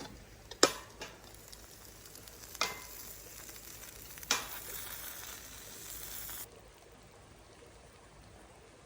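Food sizzling in a frying pan, with a few sharp clacks of a utensil against the pan; the sizzle cuts off suddenly about two-thirds of the way through.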